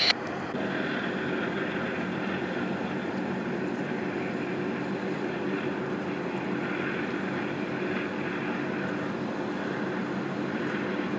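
Harbour tug's diesel engines running steadily as it passes close by: an even, low drone with a faint steady hum.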